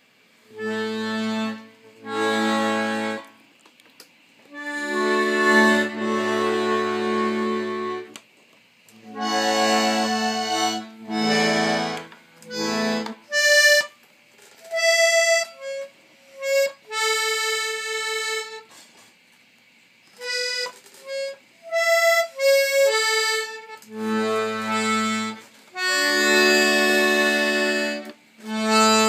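Button accordion played in short, halting phrases: held chords over bass notes, broken by pauses of about a second, with a run of short single notes in the middle.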